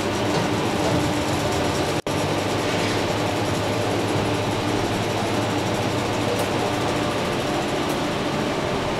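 Vertical tanning booth running, a steady whir of its cooling fans with a low hum, dropping out for an instant about two seconds in.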